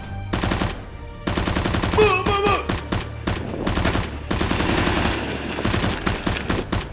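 Bursts of rapid gunfire sound effects, many quick shots in a row, over background music with a steady low bass.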